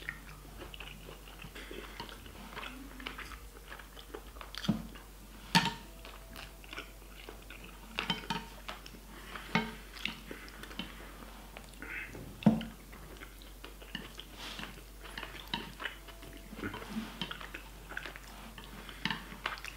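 Close-up chewing of a mouthful of rice, with small wet mouth sounds throughout. A few louder, sharp clicks stand out, chopsticks knocking on the plate.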